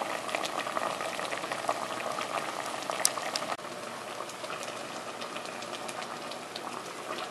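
Pork rib stew sauce bubbling at a boil in a metal pot: a steady bubbling with many small pops. It drops a little quieter about three and a half seconds in.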